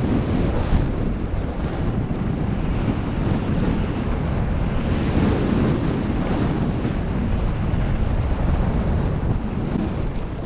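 Heavy wind buffeting on the camera microphone, mixed with the rumble of mountain-bike tyres rolling fast down a dirt trail.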